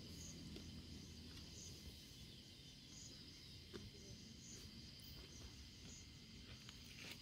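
Near silence: faint outdoor ambience with insects chirping, a high pitched chirp repeating about every half second over a steady high hum, and a few soft clicks.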